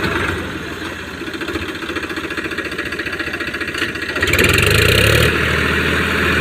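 Powertrac tractor's diesel engine running at low revs with an even pulsing beat, then revving up louder about four seconds in.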